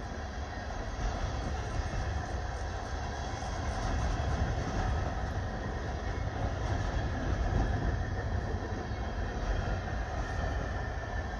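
Freight train of flatcars loaded with open-top waste containers rolling past close by: a steady noise of steel wheels running on the rails.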